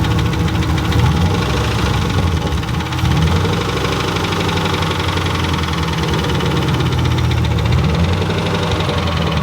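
Turbocharged Ford Mustang Bullitt V8 idling with a fast, steady knock, revved lightly a few times. The owner takes the knock for rod knock, though he had also suspected a timing chain guide because it runs too smooth and too consistent for a rod bearing.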